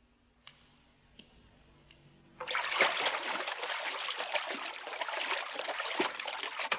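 Water sloshing and splashing in a bathtub as a hand swishes through it, starting suddenly about two and a half seconds in. Before that, a few faint soft footstep taps.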